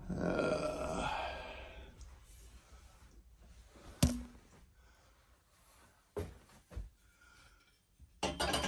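A spirit level being handled: a breathy exhale at the start, one sharp click about four seconds in, and a couple of soft thumps. Near the end comes a quick rattle of taps and knocks as the level is set up against the metal closet rod.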